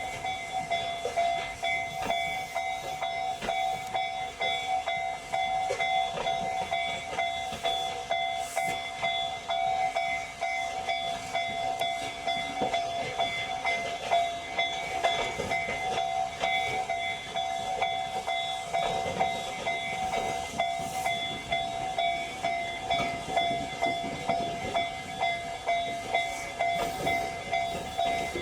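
Tobu Railway electric train moving on the depot tracks, its wheels clacking and hissing on the rails. Under it runs a steady ringing tone, which pulses about twice a second toward the end.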